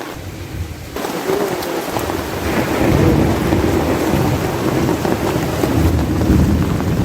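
Heavy rain pouring down, growing louder about a second in, with a deep low rumble building beneath it from about two and a half seconds in.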